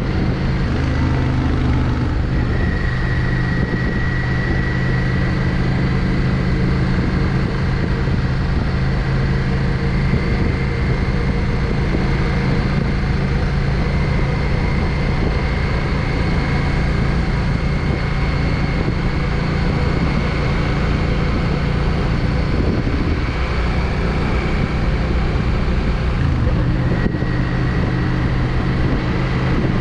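Yamaha XVS 650 Drag Star's air-cooled V-twin running at steady cruising revs under way, with a faint whine that slowly rises in pitch. The engine note shifts about two seconds in and again near the end.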